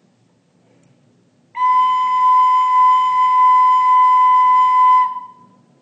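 Soprano recorder playing the note B (Si), fingered with the thumb hole and first front hole closed: one steady held note of about three and a half seconds, starting about a second and a half in.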